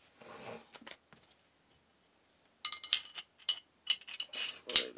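Glock 17 barrel being fitted back into the slide: metal parts clicking and clinking against each other in a quick run that starts about halfway through, after a faint rustle of handling.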